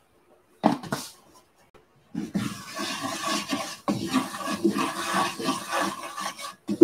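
Wooden spatula scraping and stirring flour into hot bacon grease in a vintage Birmingham Stove and Range cast iron skillet, working up a roux for gravy; a brief clatter about half a second in, then steady rough scraping from about two seconds in.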